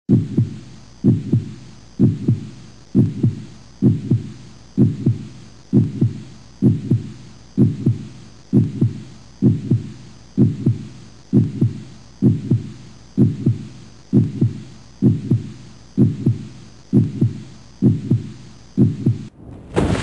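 Heartbeat sound effect: a steady double thump, about one beat a second, which cuts off just before the end.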